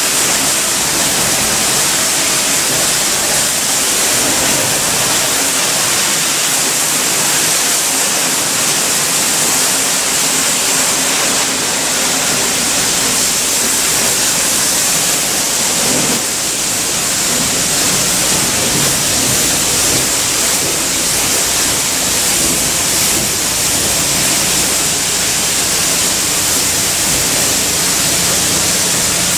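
Steady, loud hiss of a water spray jet rinsing a commercial air conditioner during cleaning, with a brief change in the spray about halfway through.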